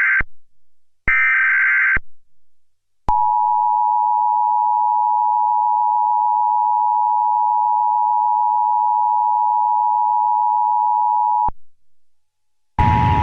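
Emergency Alert System broadcast signals. The tail of one short header data burst and then one full burst sound as harsh buzzing warbles, each about a second long. Then comes the EAS attention signal, a steady two-tone 853/960 Hz tone held for about eight seconds, which cuts off abruptly. Noisy broadcast audio cuts in just before the end.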